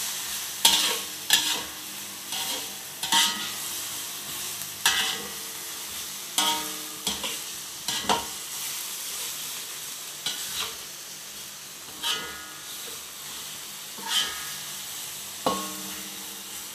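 Beef and spice paste for rendang sizzling in a pan as it is stirred, with sharp knocks and scrapes of the stirring utensil against the pan every second or two.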